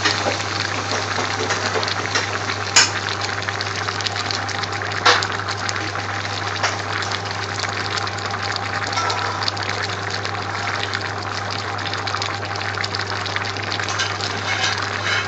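A large pan of chopped onions, carrots and green pepper cooking down in vegetable oil, bubbling and sizzling steadily over a low hum, with two sharp clicks about three and five seconds in.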